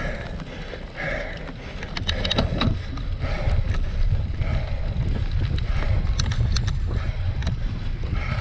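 A cyclocross bike ridden over wet, muddy ground, heard through an on-board camera microphone as a low, dense rumble of wind buffeting and riding noise that grows stronger about two seconds in. A few quick runs of sharp clicks come from the bike.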